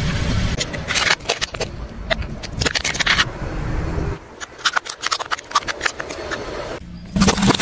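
Plastic toy cars cracking and crunching under a car tyre: a run of sharp cracks and snaps over the low rumble of the car. About four seconds in the rumble drops away and scattered cracks continue.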